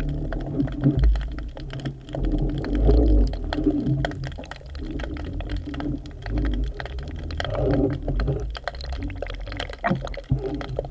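Muffled underwater sound picked up by a submerged camera: a low, uneven rumble of moving water with many scattered small clicks and crackles.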